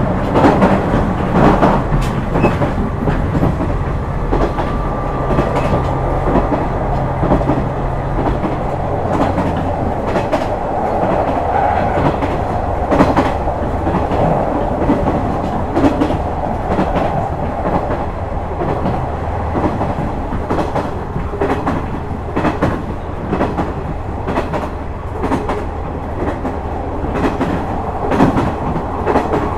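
KiHa 126 series diesel railcar running at speed: a steady diesel engine drone with the rhythmic clatter of wheels over rail joints. About nine seconds in, the engine note changes.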